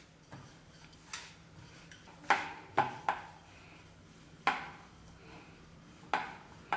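Wooden rolling pin working dough on a round wooden board, giving sharp wooden knocks and clacks at irregular intervals, about seven in all, as the pin and board strike and rock while a flatbread is rolled out.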